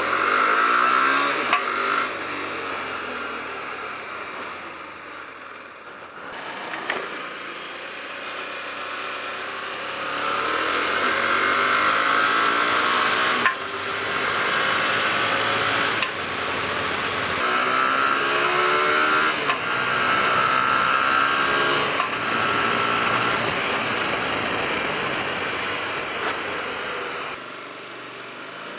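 Hyosung GT250R's 250 cc V-twin engine running and being revved up and down, with sharp backfire pops every few seconds that seem to come from the front under the gas tank. The owner suspects a loose carb, intake or exhaust manifold.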